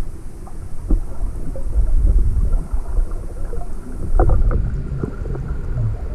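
Underwater sound picked up by a GoPro in its waterproof housing: a low, uneven rumble of water movement with scattered crackles and clicks.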